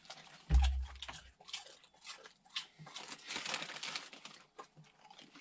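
Crinkling of a bag of ketchup chips and the crisp crunching of chips being chewed, with a dull thump about half a second in as the loudest sound.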